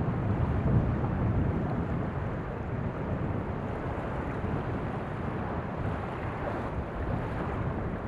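Steady wind buffeting the microphone, with small waves washing onto a sandy shore.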